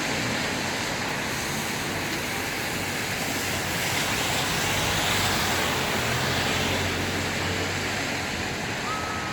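Steady road traffic noise: a continuous hiss of passing vehicles with a low engine hum underneath. A thin, steady high tone starts near the end.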